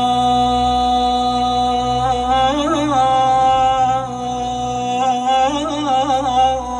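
Sad Iraqi mawwal: a long held melodic note, twice broken by quick wavering ornamental turns, over a steady low drone.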